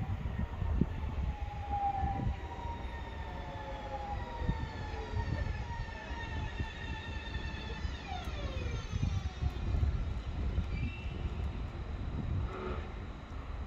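BM 72 electric multiple unit braking into a station, its traction motors whining in several tones that fall in pitch as it slows, over a low rumble.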